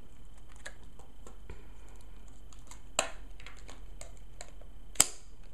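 Light clicks and taps of plastic packaging being handled as a small headphone adaptor is worked out of its clear plastic tray, with two sharper snaps about three and five seconds in.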